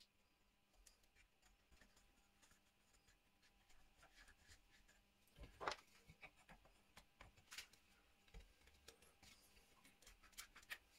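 Near silence broken by faint scattered clicks and knocks of plywood pieces being handled and fitted against a drill press's column, the loudest knock about halfway through.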